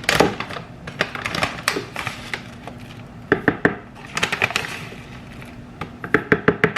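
A spoon clicking and knocking against the seed container and the blender jug as chia seeds are spooned into the blender, ending in a quick run of taps.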